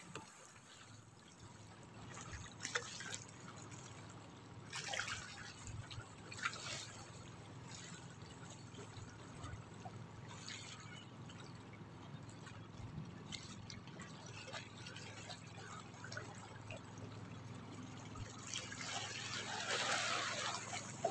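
Small waves lapping and splashing against the rocks of a sea breakwater in irregular short splashes, a louder, longer splash near the end, over a steady low hum.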